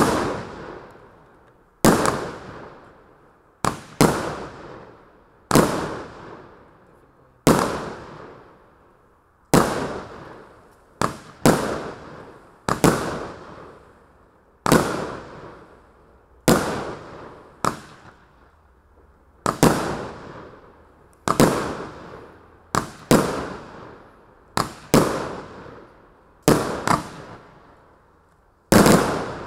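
Chinasky EP-4011A 30 mm, 20-shot consumer firework cake firing its shells in sequence: about twenty sharp bangs, roughly one every one and a half to two seconds, with a few coming in quick pairs. Each bang trails off over a second or so.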